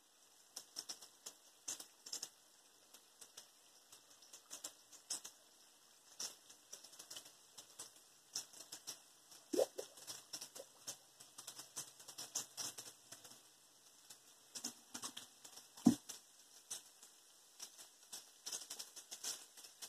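Batter-coated bacon frying in a pan of hot oil: a steady, irregular crackling and popping of the oil around the pieces. A couple of dull knocks stand out, the louder one late on.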